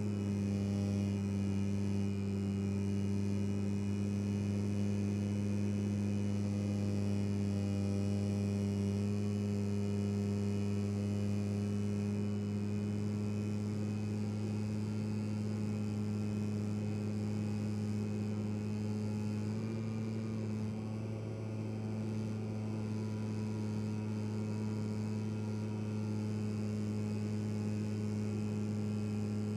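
Electric motor and propeller of an FMS 1500mm P-47 RC plane running at cruise in flight, heard from the onboard camera: a steady low hum with a higher whine above it, easing briefly about twenty seconds in.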